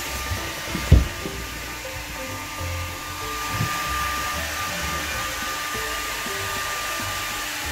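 Hair dryer blowing steadily with a thin high whine, drying a freshly shampooed border collie's coat. A single thump comes about a second in.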